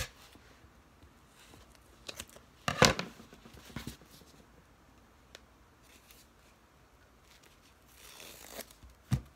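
A rolled diamond painting canvas being handled on a table: a few short rustles and clicks, the loudest about three seconds in, a brief hiss near the end and a knock just before the end.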